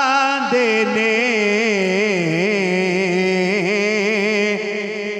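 Male naat reciter singing one long, ornamented held note into a handheld microphone. The pitch wavers in a quick vibrato and dips down in slow turns.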